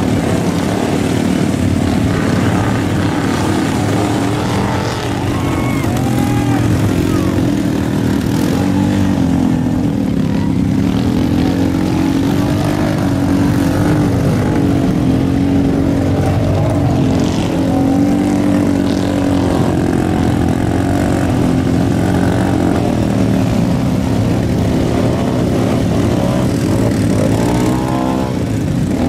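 Several ATV engines running together, their notes overlapping and revving up and down.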